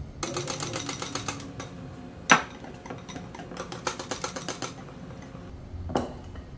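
Wire whisk clattering quickly against the sides of a glass mixing bowl while stirring flour into pancake batter, in two spells of rapid clicks. A single sharp knock about two seconds in, and a smaller one near the end.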